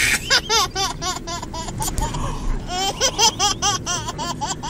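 A baby laughing in quick, high-pitched bursts, two runs of giggles with a short break about two seconds in.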